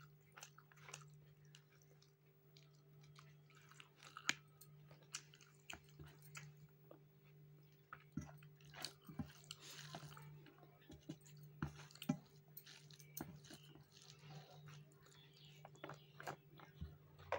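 Faint chewing and mouth sounds of someone eating rice and curry by hand: soft smacks and small scattered clicks, over a steady low hum.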